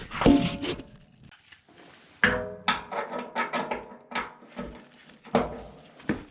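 Metal tools knocking and clinking, some strikes ringing on briefly, as a wrench and socket work on a 9/16 bolt: a loud clank near the start, another about two seconds in, then a run of lighter knocks.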